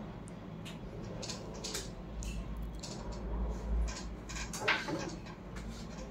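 Room tone with a low steady hum and scattered small clicks and knocks, and a brief faint voice sound about three quarters of the way through.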